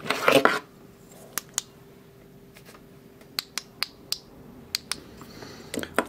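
Small metal lock parts being handled: a brief clatter of metal on metal at the start, then a few scattered light clicks and taps.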